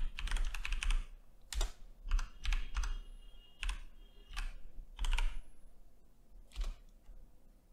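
Typing on a computer keyboard: irregular runs of key clicks with short pauses between words.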